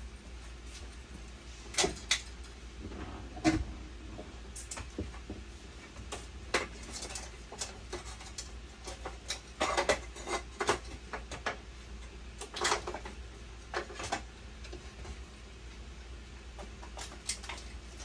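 Scattered clicks and light knocks of parts being handled and refitted on a hemodialysis machine, at irregular intervals over a steady low hum.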